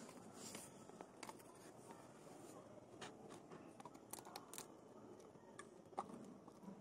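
A dog chewing and biting into a dry flatbread: faint, scattered crunchy clicks, bunched about three to four and a half seconds in, with a sharper one near the end.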